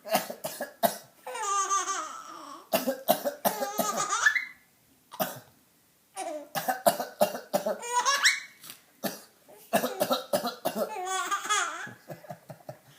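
A man coughing in short, sharp fits, and a small child laughing in high-pitched bursts in between. There is a brief lull near the middle.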